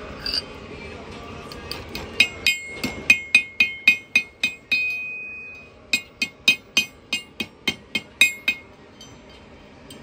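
Blacksmith's hammer striking a hot iron rod on the horn of an anvil, bending the rod's end into a loop: two runs of quick blows, about four a second, each with a bright metallic ring. Between the runs the anvil rings on alone for about a second.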